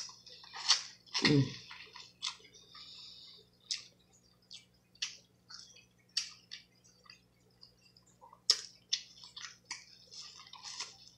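Close-up eating sounds from boiled blue crab: wet chewing and smacking with irregular sharp clicks, the loudest right at the start.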